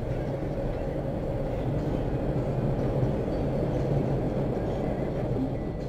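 Metro train rumbling along the track, heard from inside the carriage: a steady low drone with a constant hum underneath.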